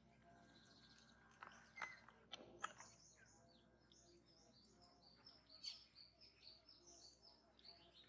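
Quiet, sharp clicks of a kitten lapping water with its tongue, loudest around two seconds in. From about three seconds on, birds chirp in quick, high, repeated notes.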